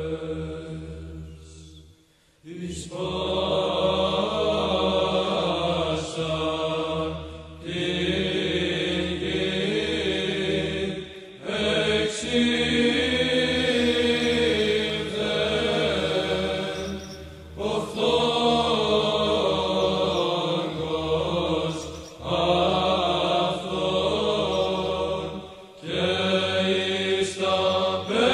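Byzantine-style liturgical chant: voices singing a slow melody over a steady held drone, in phrases of a few seconds each with short breaths between them.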